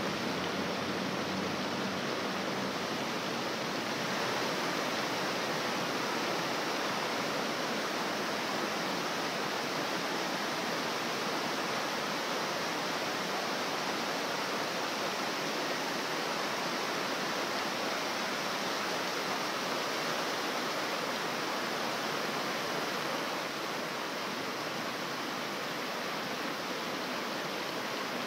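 Water jets of a large illuminated fountain splashing down into the pool, a steady rushing hiss that eases off a little for the last few seconds.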